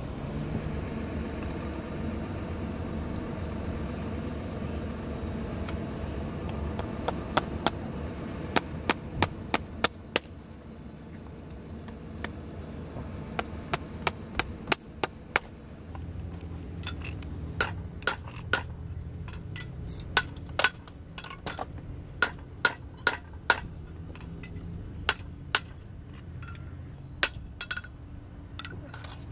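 Farrier's hammer driving nails through a new steel horseshoe into a horse's hoof: runs of sharp metallic taps, some ringing briefly, starting about six seconds in and coming in bursts. A steady low hum runs underneath.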